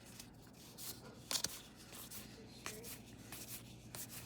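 Baseball trading cards being flipped through and slid against each other by hand: faint papery rubbing, with a couple of sharper clicks about a second and a half in.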